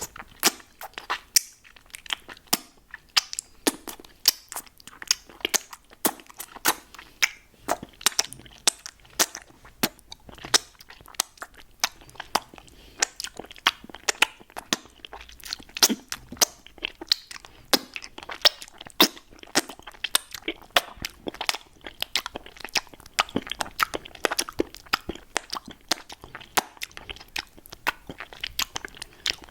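Mouth sounds on a hard lollipop candy: an irregular run of sharp clicks and crunches, several a second.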